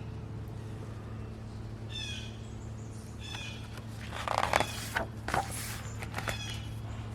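Birds calling several times over a steady low hum. The calls start about two seconds in and come most thickly in the second half.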